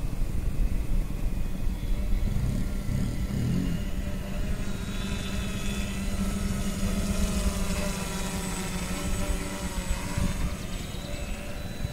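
A radio-controlled tricopter with a fixed-wing airfoil flying past: a steady buzzing whine from its propellers that grows fuller and brighter in the middle of the pass, then eases off, over a low rumble.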